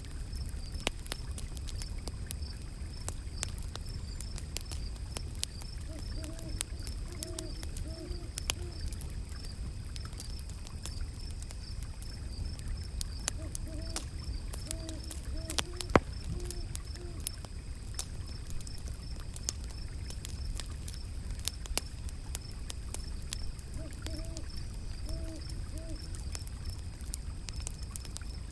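Wood fire crackling with many sharp pops, one louder pop about halfway through, over a low steady rumble of flowing river water. An owl hoots in three short series of about four hoots each, and a faint high chirping pulses steadily in the background.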